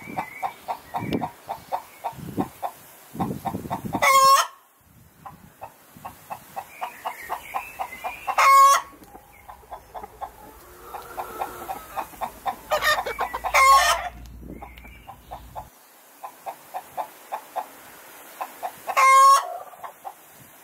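Flock of chickens clucking in quick, steady runs, with five loud, brief calls breaking through, one about every four seconds.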